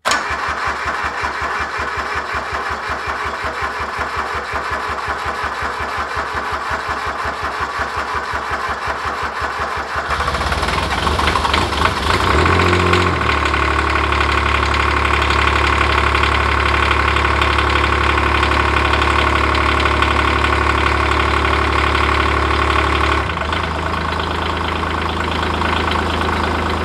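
Grasshopper 721D zero-turn mower's Kubota three-cylinder diesel cranking on the starter with an even beat for about ten seconds, then firing and running. This is a cold start after winter storage. The engine runs at a higher speed for about ten seconds, then drops to a slower idle near the end.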